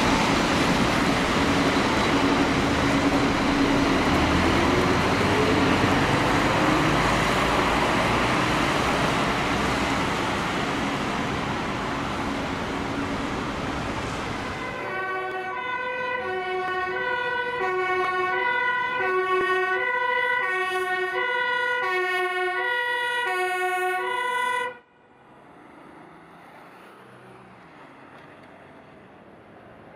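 Fire engine's siren wailing, with a rising sweep in pitch, over loud engine and road noise. About halfway through the noise cuts off and a clean run of stepped electronic tones plays for about ten seconds, ending abruptly, then only faint hiss.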